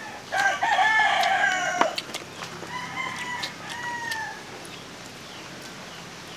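A rooster crows once, loud, for about a second and a half, starting a moment in. A fainter, more distant crow follows about three seconds in.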